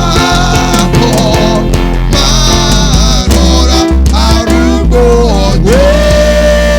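Live gospel worship music: a band playing under a singer's melody, which settles into one long held note about two-thirds of the way through.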